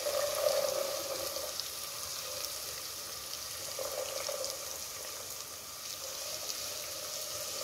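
Garlic, spring onion and diced carrot sizzling in hot oil in a nonstick pan, a steady hiss with faint crackles, as the carrot goes in and a wooden spatula starts stirring.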